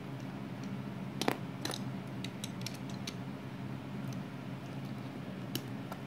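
Plastic Lego bricks clicking and clattering as they are handled and set down on a wooden floor. The sharpest click comes about a second in, followed by a scatter of lighter clicks, over a steady low hum.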